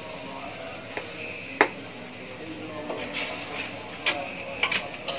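Metal spoon clinking against a wok while stir-frying. There is one sharp clink about a second and a half in, and several quicker clinks near the end.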